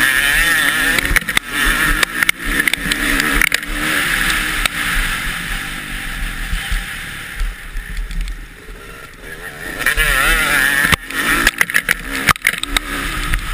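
Motocross bike engine heard from the rider's own mount, revving up and down as the throttle is worked, with rush and sharp knocks on the microphone over the bumpy track. The engine eases off for a couple of seconds past the middle, then revs hard again.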